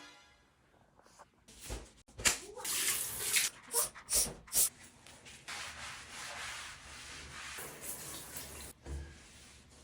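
Water splashing in a shower, first in short bursts, then steadily for a few seconds before it stops, with a short thump near the end.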